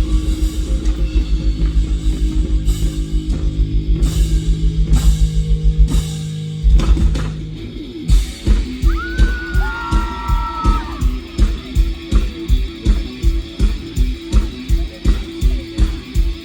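Live rock band playing with guitar and drum kit; the song ends about six seconds in with a final hit, and after a short gap a steady beat of about three strokes a second starts the next song's intro.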